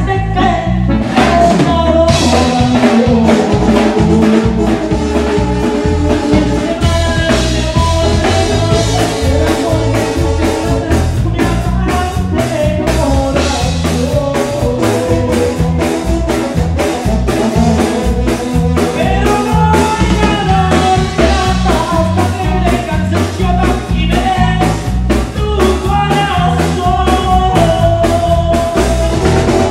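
Live tierra caliente band playing a song, with drum kit and bass guitar keeping a steady beat under keyboard and a singing voice.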